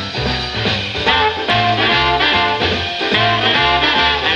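A 1951 78 rpm record of a swing band playing, with horns (trumpet, trombone and saxophones) over a steady pulsing bass line, piano and drums.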